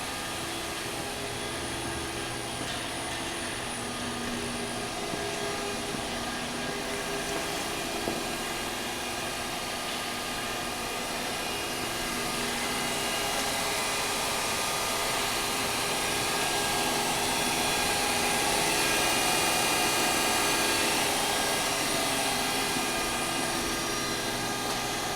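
Kellenberger CNC cylindrical grinder running with its OD grinding wheel spindle and work head turning: a steady machine whir with a hum of fixed tones. It swells louder past the middle and eases back near the end.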